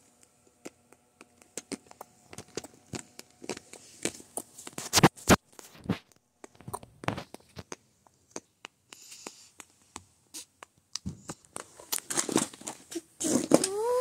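Irregular clicks, taps and scratches from something being handled, with a few louder knocks about five seconds in. A short rising pitched call comes in near the end.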